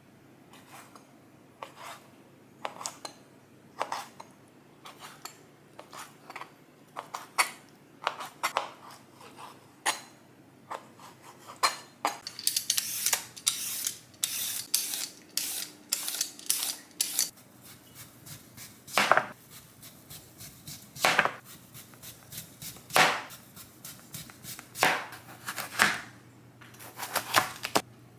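A kitchen knife slicing fresh abalone, tapping sharply and quickly on a cutting board. About twelve seconds in, a vegetable peeler scrapes in rapid strokes along a Korean radish. From the midpoint on, a few louder knocks come about two seconds apart.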